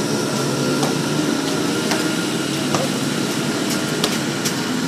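Basketball bounced on a concrete court: a handful of short, sharp bounces, about a second apart at first and closer together later, over a steady background noise.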